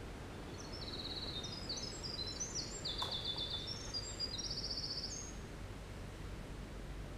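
Winter wren singing: one long, rapid, high-pitched tumble of trills and warbles lasting about five seconds, over a steady low background hiss. A faint click sounds about halfway through.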